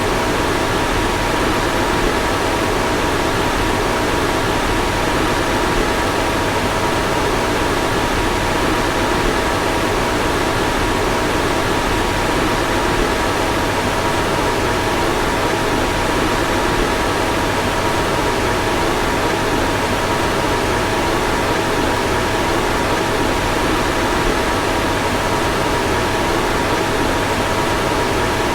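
Car fan blowing steadily: an even rush of air with a faint steady whine from the fan motor.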